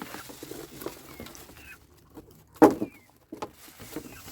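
Animal sounds: a short, loud call about two and a half seconds in, with faint bird chirps through the rest.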